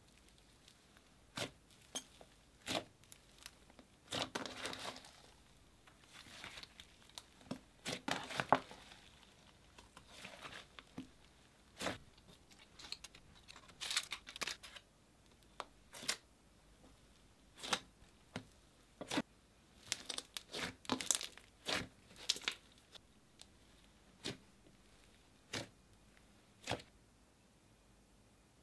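Soft, fluffy slime being pressed, squished and stretched by hand: irregular short sticky clicks and air pops, some coming in quick clusters, with quiet gaps between.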